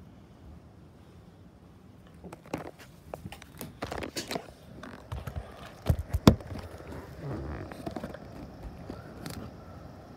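Knocks, clicks and scraping of a door being opened and stepped through, with a few loud thumps about six seconds in. After that comes the steady hiss of heavy rain.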